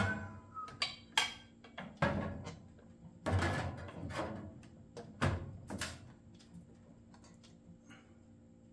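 Hard plastic and metal knocks and clunks as the handle is fitted and pressed onto a Shindaiwa 600sx chainsaw's body, a handful of separate strikes over about six seconds, then only faint small clicks.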